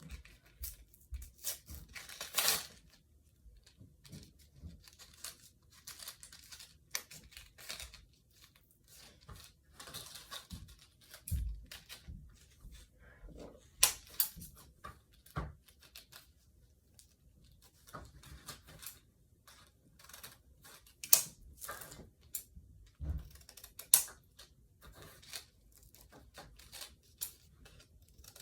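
Toy packaging being torn open and handled: irregular rustling and crinkling with scattered sharp clicks and taps, and a longer tearing rustle about two seconds in.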